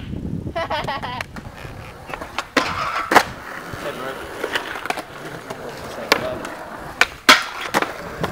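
Skateboard wheels rolling over concrete, broken by several sharp clacks of boards hitting the ground. The loudest clack comes about three seconds in, and two more come close together past the seven-second mark.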